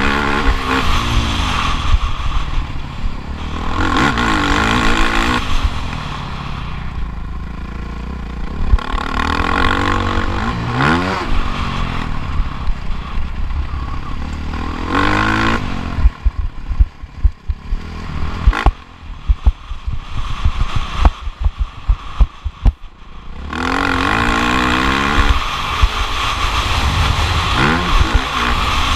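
Motocross bike engine revving hard and backing off again and again, its pitch climbing and dropping every couple of seconds. About halfway through the engine note falls back and a run of sharp, loud thumps and knocks takes over for several seconds, then the engine comes back on steadily.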